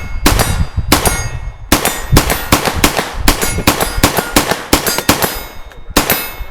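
Rapid semi-automatic gunfire at close range: about twenty shots at roughly three a second, each with a metallic ring. The firing stops at the end as the magazine runs empty.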